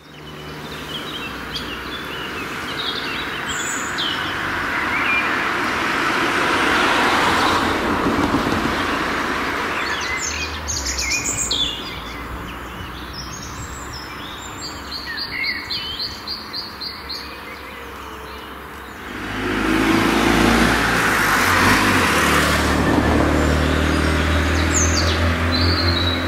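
Songbirds chirping and singing over passing road traffic: one vehicle's tyre and engine noise swells and dies away by about halfway, and another comes by with a low engine hum from about three quarters of the way in.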